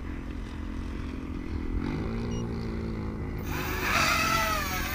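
Brushless motors and propellers of an Eachine Racer 180 tilt-rotor racing quadcopter, running at low throttle and then, about three and a half seconds in, spinning up into a louder whine that wavers in pitch as the throttle is pushed for takeoff.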